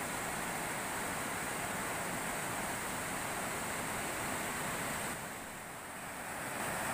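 Fast river rapids and water pouring over a concrete weir: a steady, even rush of white water. It turns briefly softer and duller about five seconds in.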